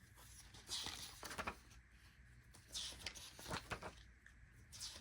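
Loose printed paper planner pages rustling and sliding as they are handled, in a few short soft bursts.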